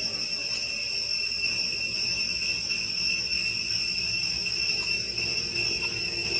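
Steady high-pitched insect chorus, an unbroken drone with no change in pitch, over a faint low rumble.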